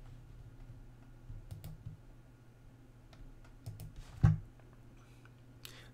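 A few scattered clicks from a computer mouse and keyboard while files are selected and opened, with one louder knock about four seconds in, over a faint low hum.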